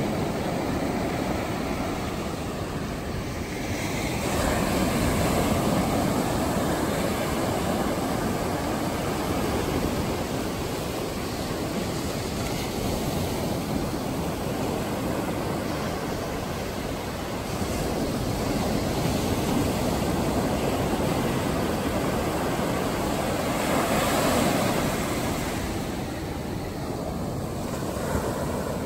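Ocean surf breaking and washing up a sandy shore, a steady rush that swells and eases as each wave comes in, loudest about five seconds in and again near the end.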